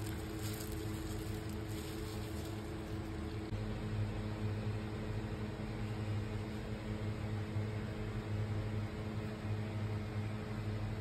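Steady low machine hum from a running kitchen motor, with faint rustling in the first couple of seconds.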